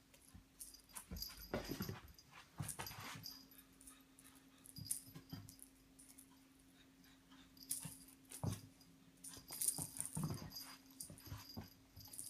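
A cat playing with a cat toy: irregular scuffles, taps and rustles in short clusters, over a faint steady hum.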